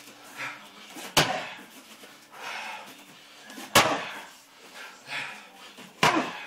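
Bare-legged kicks slamming into a handheld kick shield: three sharp smacks about two and a half seconds apart.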